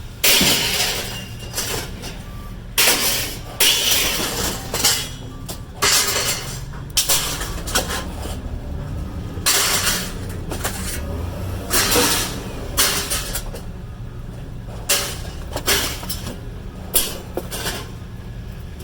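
Scrap being tossed onto a pile, a series of sharp clanging crashes about once a second, over the steady low hum of an idling vehicle engine.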